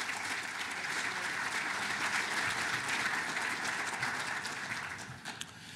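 Audience applauding, a steady patter of many hands clapping that dies away over the last second.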